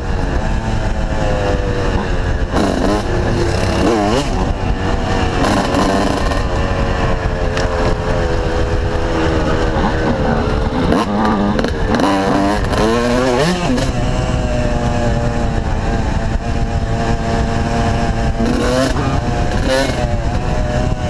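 Yamaha YZ125's single-cylinder two-stroke engine under way on a dirt trail, its pitch rising and falling as the throttle opens and closes. It is busiest around three to four seconds in and again from about ten to fourteen seconds, runs steady for a few seconds, then picks up again near the end. It is heard from a helmet-mounted camera.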